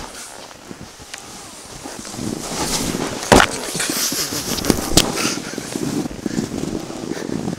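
Skis sliding and scraping over snow, a steady hiss that grows louder from about two seconds in as the skier picks up speed, with two sharp knocks around the middle.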